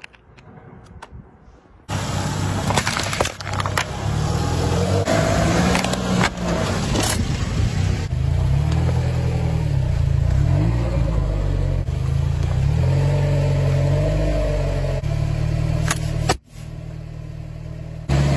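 Car engine running as the tyre rolls onto a plastic-wrapped package and crushes it, with sharp cracks and crunching from the packaging. The loud engine sound comes in about two seconds in, after a faint stretch with a few clicks.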